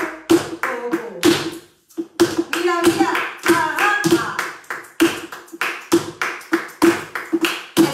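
Flamenco shoes striking a wooden floor in bulería footwork, quick sharp taps and stamps several a second, with handclaps (palmas) keeping time. A voice calls out briefly in the middle.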